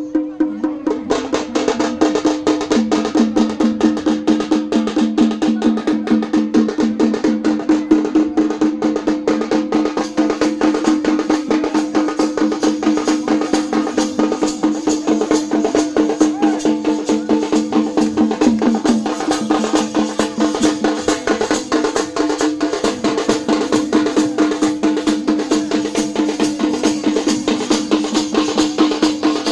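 Festival drumming: fast, evenly spaced drum strokes, several a second, with a pitched instrument holding a steady note over them.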